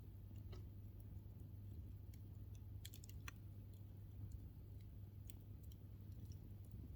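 Wood fire crackling quietly, with scattered sharp pops and a small cluster of snaps about three seconds in, over a steady low hum.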